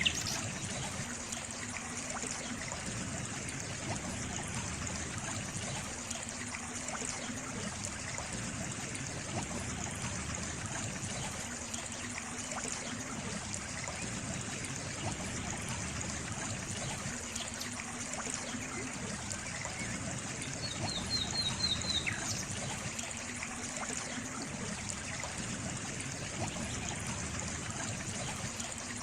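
Water trickling steadily, with a brief high trill of about six quick notes around two-thirds of the way through.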